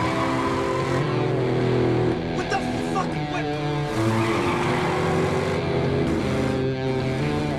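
Soundtrack music of sustained chords that change every second or two, with a car engine running under it.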